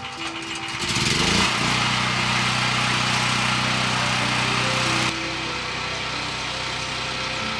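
A small motor spins up with a rising pitch, runs steadily with a hiss for about three and a half seconds, then cuts off suddenly a little after five seconds in. Background music plays throughout.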